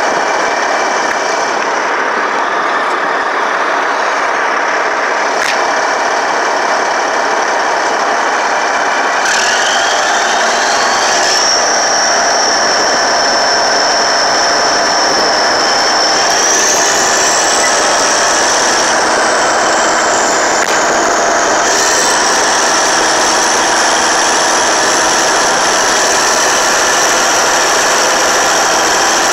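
Caterpillar D8T bulldozer's C15 ACERT diesel engine running steadily while the dozer works. A high whine rises in pitch about nine seconds in, holds, then climbs again a little past halfway.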